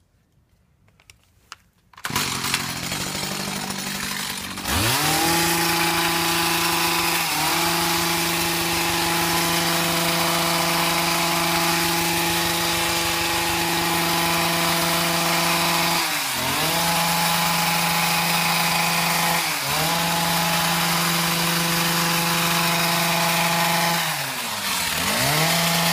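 Stihl petrol hedge trimmer: after near silence its engine comes in at idle about two seconds in, revs up about five seconds in, and runs at full throttle while cutting the hedge, the throttle briefly eased off and opened again three or four times.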